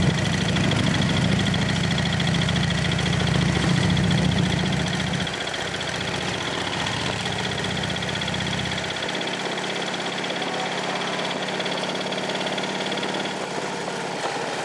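Motorcycle engines running on a group ride, heard from inside a following car, a low rumble that is loud for the first five seconds, then weakens in two steps, about five and nine seconds in.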